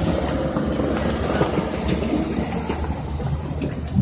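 Engine of a construction tractor working dirt, running with a steady low rumble.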